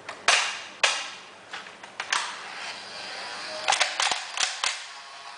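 Nerf Barricade RV-10 battery-powered dart blaster firing: sharp snaps, two about half a second apart, another near two seconds, then a quick run of four or five a little before the end.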